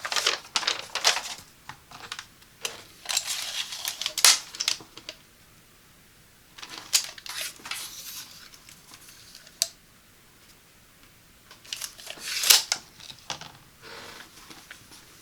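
Heating pad and its packaging being handled during an unboxing: four bursts of rustling and crinkling with quiet gaps between them.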